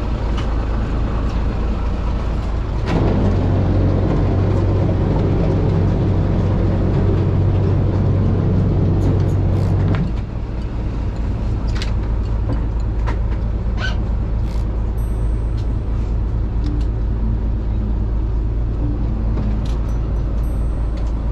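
Fishing boat's engine running with a steady low rumble. About three seconds in it runs harder with a deep hum, then drops back to the lower rumble about ten seconds in. A few light knocks come later.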